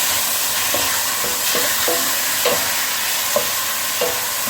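Turkey mince and onions sizzling in hot coconut oil in a pot, steadily, while a utensil stirs them with several short scrapes against the pot.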